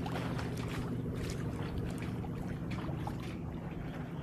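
Water splashing and trickling along the hull of a Pearson 26 sailboat under way, in short irregular splashes over a steady low rush.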